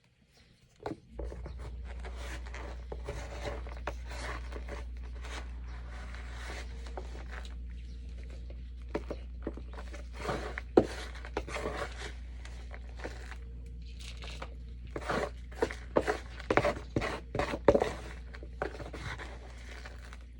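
Cat litter being scooped: irregular scrapes and crunches of a scoop working through the litter, busier in the second half. Under it, a steady low hum starts about a second in.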